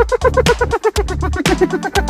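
Electronic dance music with a steady beat of about two strikes a second, a rapid run of short synth notes and a heavy bass line.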